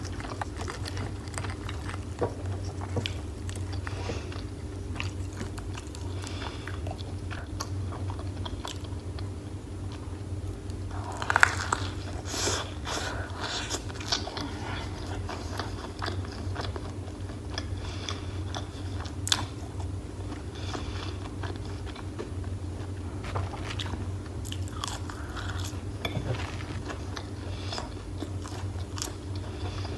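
Close-miked biting and chewing of crispy fried chicken dipped in cheese sauce: repeated crunches and mouth clicks, the loudest crunch about eleven seconds in. A steady low hum runs underneath.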